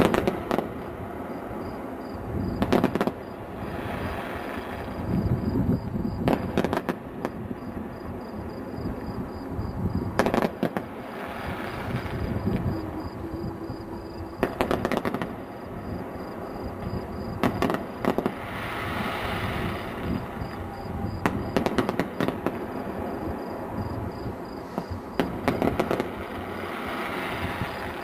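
Fireworks display: clusters of bangs from bursting shells every few seconds, with crackling between them.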